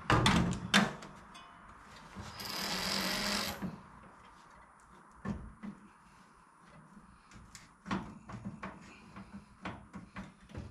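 Scattered clinks and knocks of tools and parts being handled, loudest in the first second, with a hiss lasting about a second that starts two and a half seconds in.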